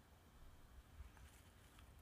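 Near silence, with a couple of faint soft ticks as minced garlic is tipped from a small glass bowl into a glass mixing bowl of chicken mince.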